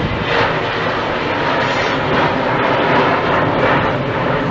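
Skywest Fokker 100 jet airliner's twin rear-mounted engines running at climb power as it passes overhead after takeoff, a loud steady roar that eases slightly near the end.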